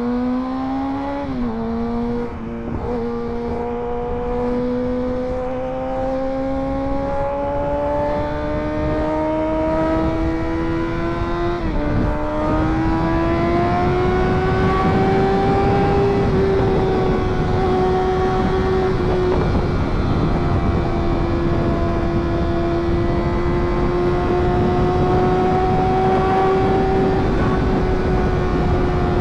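Sport motorcycle engine pulling at speed: its pitch climbs slowly, dips briefly about twelve seconds in, rises again, then holds steady at a high cruise. A rushing wind and road noise grows underneath it.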